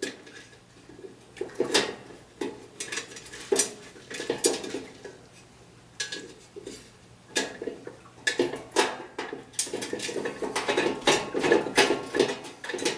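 Metal clinks, knocks and scrapes of a meter-socket collar and its fasteners being worked into place by hand at the corners, irregular and sparse at first, then busier in the second half.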